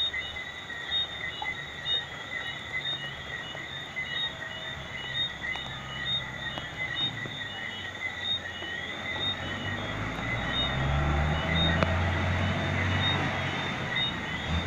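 Night rain falling steadily, with frogs calling in quick repeated high chirps throughout. A low rumble builds from about two-thirds of the way through.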